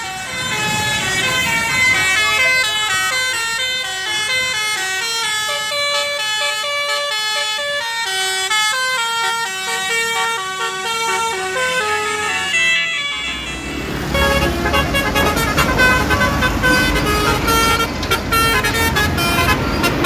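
Telolet bus horn, a multi-note air horn, playing a quick tune of stepping notes for about thirteen seconds. Then the low engine of a passing bus comes in, with more horn notes over it.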